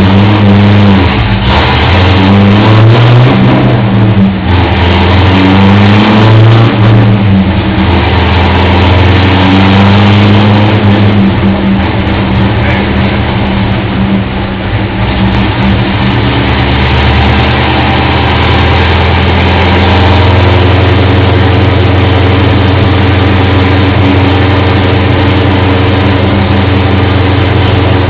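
Car engine revved several times, its pitch rising and falling, then settling into a steady idle.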